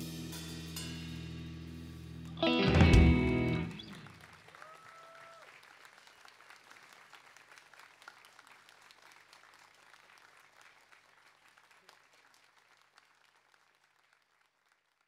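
Live band of guitars, bass and drums holding a chord, then landing a loud final hit about two and a half seconds in that rings out. Audience applause follows and fades away.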